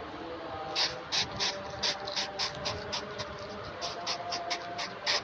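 Hedgehog snuffling and huffing: a quick run of short, sharp sniffs, about three or four a second, starting about a second in.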